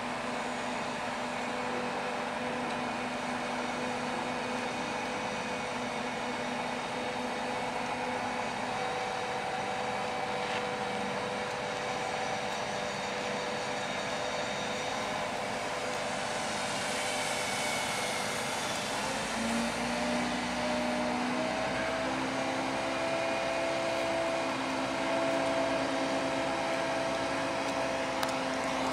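Diesel engines and hydraulics of heavy mobile cranes running steadily while lifting a heavy load in tandem. The engine note steps up to a higher pitch about two-thirds of the way through.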